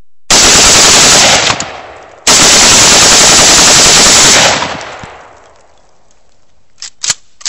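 Two long strings of bump-fired AK-pattern rifle shots, the first about a second long and the second about two seconds. The shots come so fast and loud that the recording clips and they run together, each string fading out in echo. A few sharp clicks near the end, from handling the rifle.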